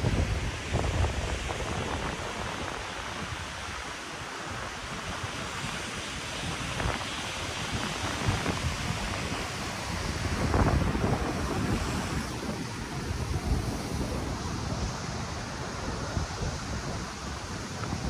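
Ocean surf breaking on a rocky reef shore, a continuous wash of waves, with wind buffeting the microphone in gusts that swell about ten seconds in.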